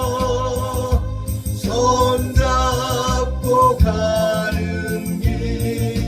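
Korean gospel song: a solo voice singing held, gliding notes over a steady instrumental accompaniment with a regular low beat.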